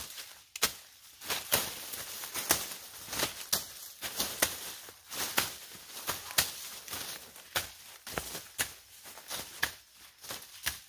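Sharp chops of a hand blade cutting through dry corn stalks, irregularly one or two a second, with rustling of dry stalks and leaves between them.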